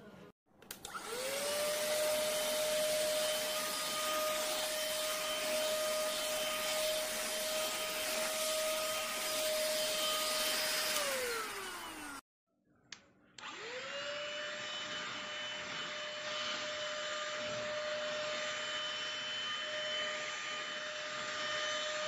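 Cordless handheld car vacuum cleaner (ST6101 type) switched on: its motor whines up to speed and runs steadily with a high whine over rushing air, then winds down with falling pitch. After a short break with a click it starts up again, whining up to speed and running steadily.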